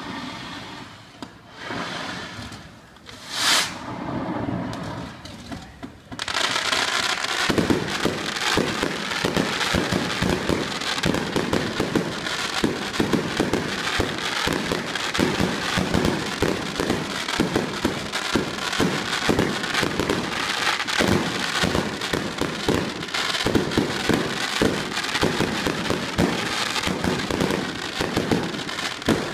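Fireworks going off from a pyrotechnic tower. A single sharp burst comes about three and a half seconds in. From about six seconds in it turns into a dense, continuous barrage of rapid bangs and crackling.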